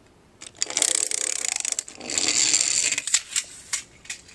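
Small toy car's wheels rolling across a wooden tabletop, giving a fast rattling whir: a first push about a second in, and a second, smoother run about two seconds in, followed by a few light clicks.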